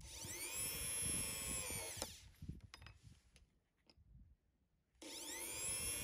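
Corded electric drill spinning up and running for about two seconds, then winding down as it drills into a small flat metal piece. After a pause of about three seconds with a few light clicks, it starts up again and runs steadily.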